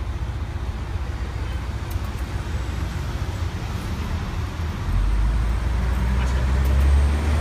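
Steady city traffic rumble, with the low rumble growing louder about five seconds in, as of a heavy vehicle going by.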